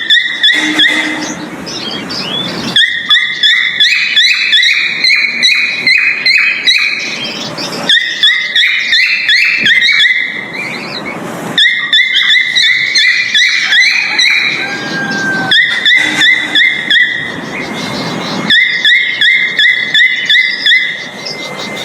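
Male cockatiel's mating call: runs of rapid, high chirps repeated a few times a second, each run lasting several seconds, with short breaks of hissy background noise between them.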